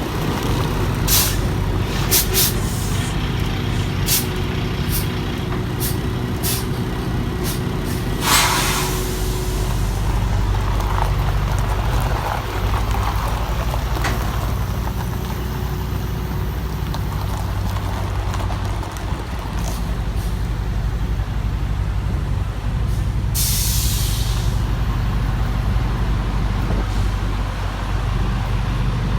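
Semi tractor's diesel engine running low and steady as the truck is maneuvered, with short loud air brake hisses about eight seconds in and again later on. A series of sharp clicks sounds in the first several seconds.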